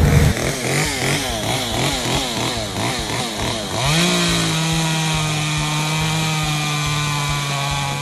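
Gas chainsaw revving up and down in quick pulses, about twice a second, then opened to full throttle about four seconds in and held at a steady high pitch as it cuts down through a small tree trunk.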